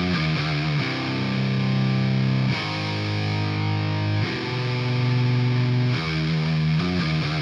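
Heavily distorted electric guitar through the Audio Assault Bulldozer amp-simulator plugin, playing held low chords in a metal rhythm tone. The chords change every one to two seconds.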